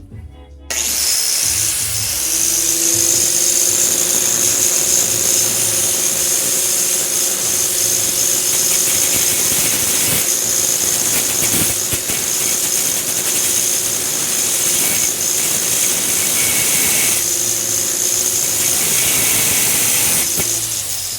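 A power tool switched on about a second in and running steadily at full speed, with a loud high hiss over a steady motor hum. It winds down shortly before the end.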